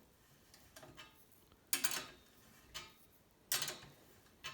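Sharp metallic clicks from hand tools being worked on a steel bicycle frame, about five spaced roughly a second apart, the second and fourth louder.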